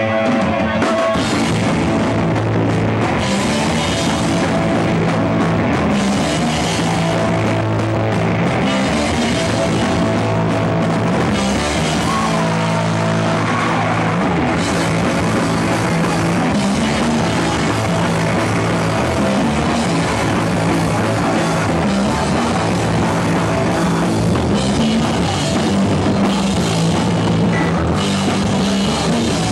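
Hardcore punk band playing loud live: guitar and a drum kit with crashing cymbals.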